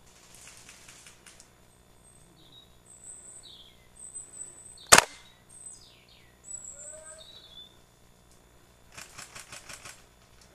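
One sharp, loud crack about halfway through, a single shot from a VFC-Umarex UMP 45 gas blowback airsoft rifle, over woodland birds chirping in short high calls. Near the end comes a quick rattle of about seven even pulses.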